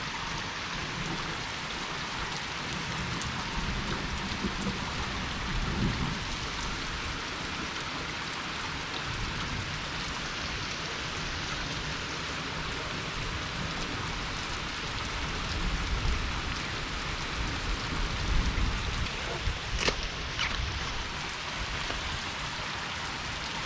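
Steady rain pattering down in a continuous hiss, with a few low rumbles swelling now and then and a couple of sharp ticks near the end.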